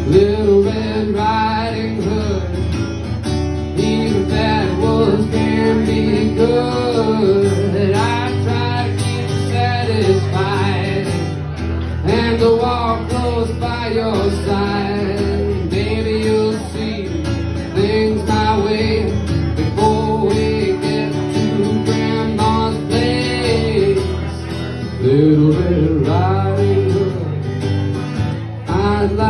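Live solo music: a steadily strummed acoustic guitar with a man's voice singing along into the microphone.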